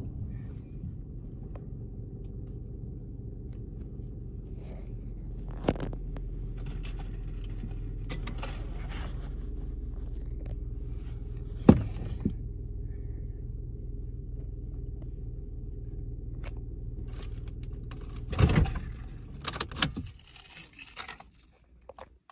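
Steady low rumble of a car heard from inside the cabin, broken by two sharp clicks. Near the end come a few bursts of jangling, rattling handling noise, and the rumble dies away.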